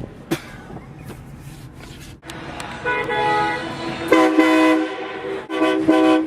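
Train horn fitted to a Honda Accord, sounding in blasts of a multi-tone chord. The first blast comes about three seconds in, a louder and longer one follows, and short quick blasts come near the end.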